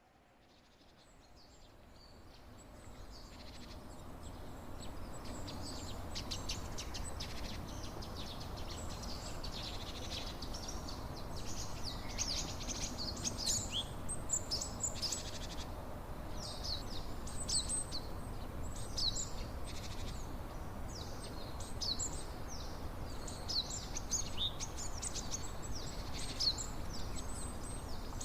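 Songbirds chirping busily over a steady rush of water, the whole sound fading in over the first few seconds.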